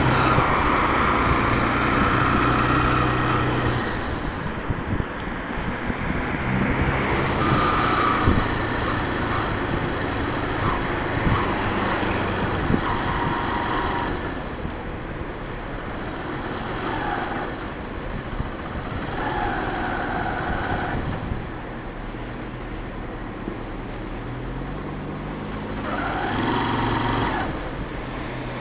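Motorcycle engine and road noise heard from the rider's seat while riding in city traffic, the engine note climbing in steps about three-quarters of the way through as the bike accelerates.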